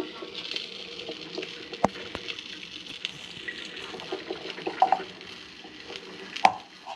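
Coffee maker percolating: a steady bubbling and gurgling with many small pops, and a couple of sharp clicks about two seconds in and near the end.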